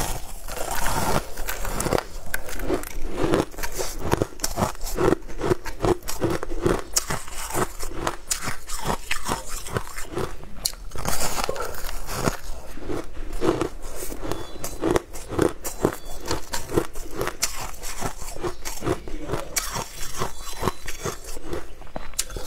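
Crunching bites into a block of packed shaved ice, with chewing of the ice in between: a dense, continuous run of crisp crackles close to the microphone.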